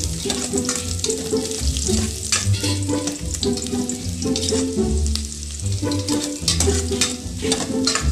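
Chopped garlic sizzling and crackling in hot oil in a stainless steel pot, with a spatula stirring and scraping against the pot bottom. Light waltz music plays underneath.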